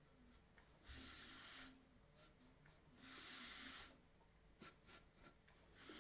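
Near silence with faint breathing: three short breaths about two seconds apart, plus a few light clicks.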